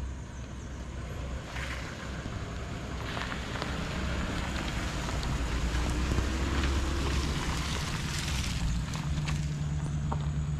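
2011 Lexus LS460's V8 driving slowly past at low speed, its tyres rolling over grass and dirt. The sound swells as the car comes closest, about midway, then eases off a little.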